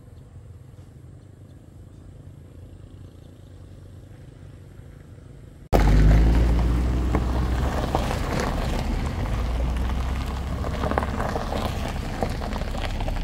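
Homemade truck's engine running, first as a faint low rumble. About halfway through it cuts abruptly to a much louder engine with rattling and clatter, easing off a little toward the end.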